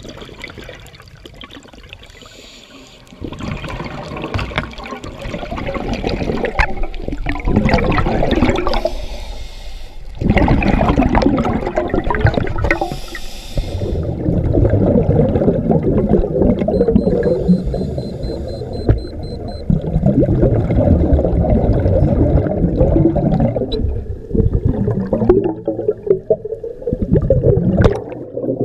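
Scuba diver's exhaled air bubbling out of the regulator, recorded through the underwater camera, in long irregular rushes with short pauses between breaths. A brief higher hiss comes twice, near the middle.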